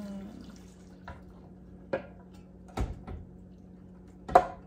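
A few sharp clicks and knocks of a container and kitchen utensils against a pot, spaced about a second apart, the last one near the end the loudest. It is the sound of the last liquid being tapped and scraped out of a container. A steady low hum runs underneath.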